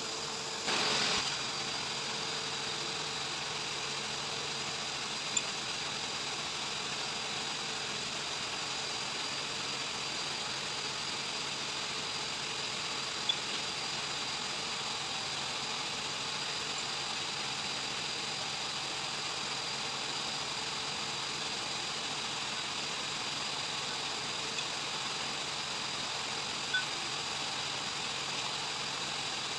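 Steady machinery hum with a faint high whine, broken by a brief rustle about a second in and a few sharp clicks of metal parts being handled.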